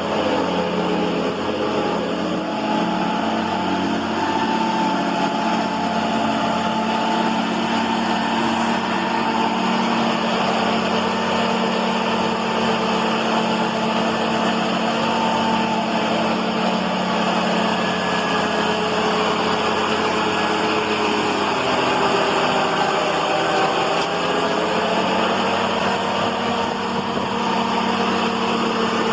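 A motor vehicle or machine engine running steadily, its pitch drifting slightly up and down.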